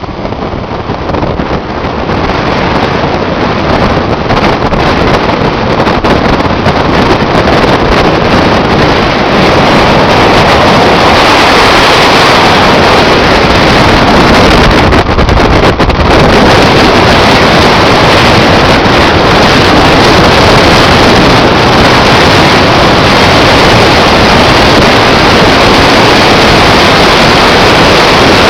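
Heavy wind buffeting the microphone over the road noise of a moving vehicle, building in loudness over the first ten seconds and then holding steady and very loud.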